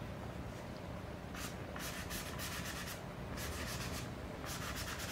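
A stiff, fairly dry brush scrubbing back and forth across watercolour paper to soften and spread the paint into a misty blur. The scratchy strokes start about a second and a half in and come quicker near the end.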